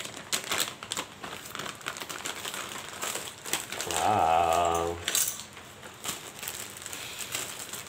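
Plastic packaging bags crinkling and rustling as they are handled and pulled open, with a short crackle of clicks. About four seconds in, a man's voice hums briefly.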